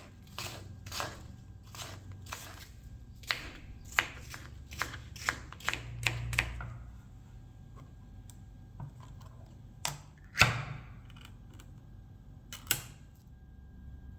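Kitchen work sounds during baking preparation: a quick run of sharp taps, about two a second, for six or seven seconds, then a few scattered knocks, the loudest about ten seconds in.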